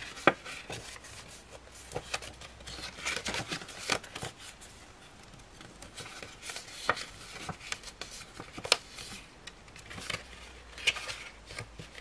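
Scored cardstock being folded back and forth by hand along its score lines, giving irregular crisp creasing clicks and crackles of the card.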